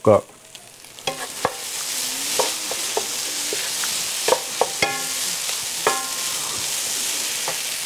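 Plant-based ground meat substitute sizzling in an electric skillet while a wooden spoon stirs and scrapes through it. The spoon knocks against the pan now and then, and the sizzle grows louder about a second in as the stirring starts.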